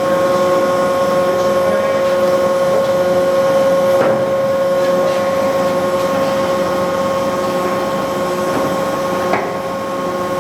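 Tarnow TUJ-50M (Toolmex) gear-head lathe running with its spindle under power: a steady whine from the headstock gears over the motor hum.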